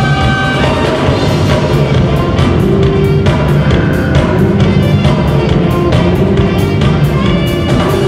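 Live jazz fusion band playing: saxophones and trumpet over electric guitar, bass and a drum kit keeping a steady beat on the cymbals. Held horn notes stand out in the first second.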